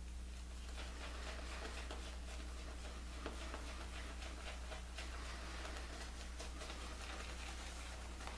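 Straight razor, an Edward Barnes & Sons 6/8 near wedge, scraping through whiskers in many short, quick strokes, a faint crackling scratch. A steady low electrical hum runs underneath.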